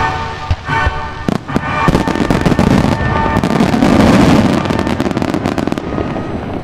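Fireworks bursting and crackling in quick succession over music from the display's loudspeakers. The music stops about halfway through while the crackling bursts thicken into a dense volley.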